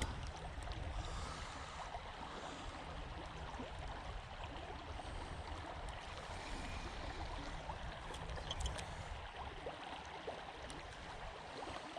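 Creek water running steadily: an even, low-level rushing with no distinct events.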